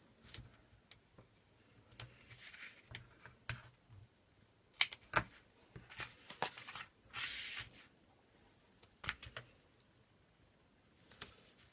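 Hands handling cardstock and a roll of adhesive tape: scattered light taps, clicks and paper rustles, with a longer rustle about seven seconds in.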